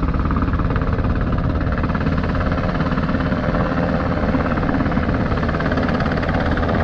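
Firefighting helicopter hovering low overhead, its rotor giving a steady, rapid chop over a low rumble while it refills by siphoning lake water through a hanging hose.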